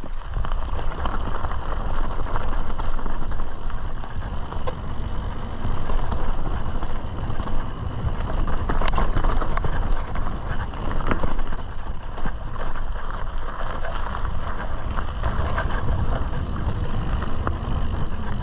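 Mountain bike riding down a dry dirt and rocky singletrack: tyres rolling and crunching over dirt and stones, the bike rattling, with a few sharper knocks from rocks and roots, over a steady low rumble of wind on the camera.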